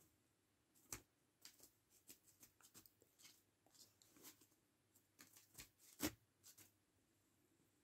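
Stack of euro banknotes being handled and flicked by hand, giving faint, crisp paper crackles and flicks. The sharpest come about a second in and about six seconds in, and they stop shortly before the end.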